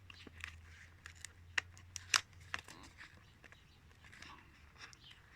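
Packaging being worked open by hand: faint handling noises with a handful of sharp clicks and light scrapes from the box, most of them in the first half, then quieter.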